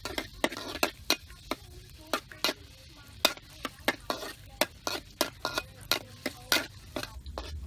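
Metal ladle stirring and scraping chopped aromatics frying in a little oil in a metal wok, with irregular sharp clinks of the ladle on the pan, about two a second, over a light sizzle.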